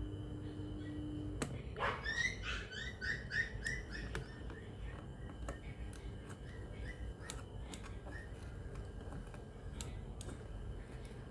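A rapid run of short chirps, about five a second, from a small animal: they begin about two seconds in and fade away over the next few seconds. Scattered light clicks sound throughout, and a steady low hum is heard for the first second or so.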